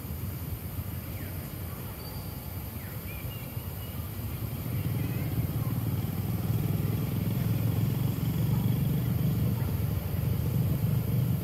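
A low engine rumble, growing louder about halfway through, with a few faint bird chirps early on.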